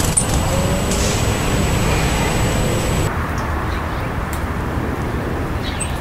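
Steady low rumble of road traffic, with a few faint, short bird chirps in the second half.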